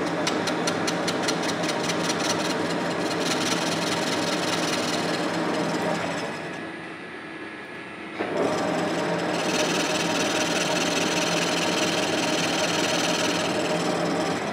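Metal lathe turning a Baldor grinder bearing cap, the tool scraping across the cast face. The cut is interrupted, with rapid even ticking in the first few seconds. It eases off about six seconds in and starts again about two seconds later, then runs steady.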